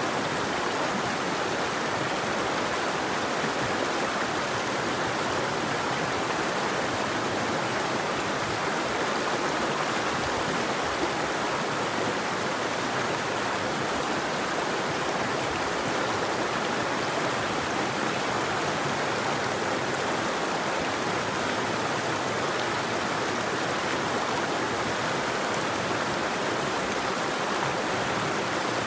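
River water flowing over rocks: a steady, even rush of running water with no birdsong.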